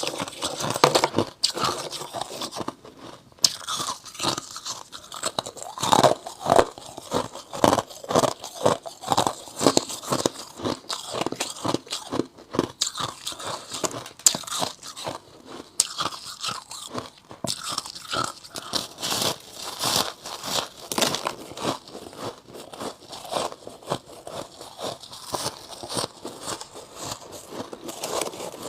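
Close-up crunching and chewing of white frost chunks in the mouth: rapid, irregular crisp crunches, several a second, with louder bites every few seconds.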